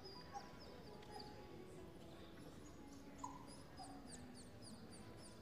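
Near silence in a large hall, with faint, short, high-pitched dog whimpers and yelps from far off, many falling calls scattered throughout.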